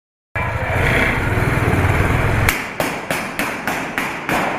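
A loud rumbling noise for about two seconds, then a rapid series of about eight sharp shots from a pistol, roughly four a second.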